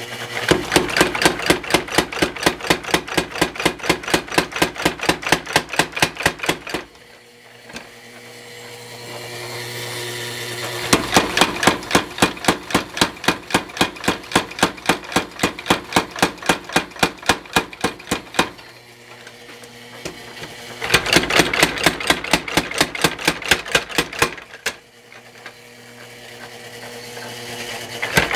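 Little Giant mechanical power hammer pounding a red-hot 1/2 x 1 inch flat steel bar to draw it out: three runs of rapid blows, about four a second and each several seconds long, with a fourth run starting at the very end. A steady motor hum fills the pauses between runs.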